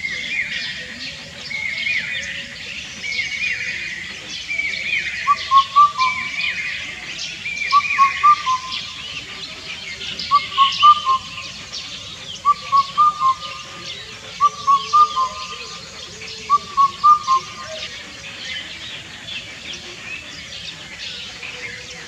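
Indian cuckoo singing its four-note hooting song, one phrase about every two seconds, six times from about five seconds in until a few seconds before the end. Over the first few seconds another bird repeats higher phrases, and small birds chirp throughout.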